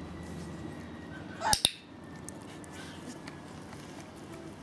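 Handheld dog-training clicker pressed and released once, a sharp double click-clack about a second and a half in, marking the puppy's sit for a treat.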